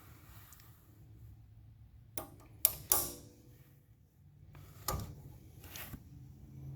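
Metal parts of an off-road floor jack knocking together as they are handled and fitted: a few sharp clanks about two to three seconds in, one of them ringing briefly, then two more knocks near the end.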